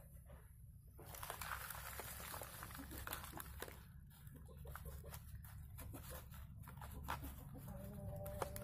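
Hands firming moist soil around cucumber seedlings in a plastic jerrycan planter: faint rustling and crackling with many scattered small clicks.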